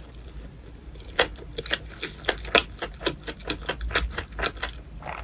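Eating cockle bibimbap: a run of sharp, irregular clicks and clinks, several a second, starting about a second in.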